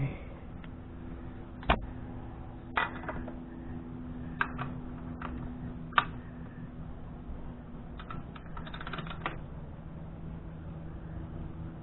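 Scattered sharp clicks and knocks from handling the parts while a new spin-on oil filter is fitted to the motorcycle, over a steady low hum; a quick cluster of clicks comes near the end.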